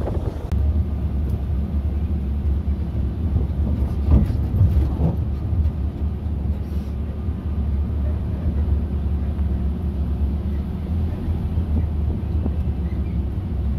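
Sightseeing land train's engine running steadily as it drives along, a low drone with road rumble.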